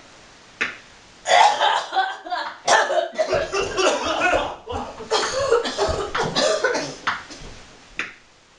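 A person coughing in a long fit of repeated coughs that fades near the end, as from the 'con plague' illness. A sharp click comes about half a second before it.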